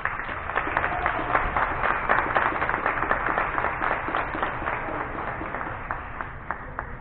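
A group of people clapping their hands together, a dense patter of many claps. It thins to a few separate claps near the end, then stops.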